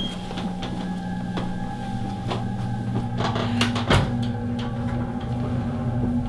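Background music of held, organ-like chords that shift about four seconds in, over footsteps on stairs and a sharper knock about four seconds in.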